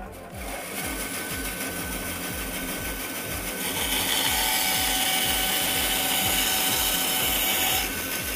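Small table-mounted power saw with a thin vertical blade running and cutting through a pine board. The cutting gets louder and harsher from about halfway in while the blade is in the wood, then drops back near the end as the cut finishes.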